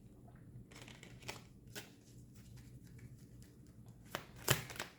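Tarot cards being handled: soft, scattered clicks and rustles, with a few sharper clicks near the end.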